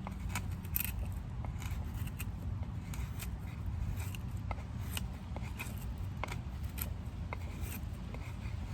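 Scandi-ground O1 tool steel fixed-blade knife (L.T. Wright Sospes) shaving feather-stick curls off a stick of seasoned pine, in irregular short scraping strokes and clicks. A steady low rumble runs underneath.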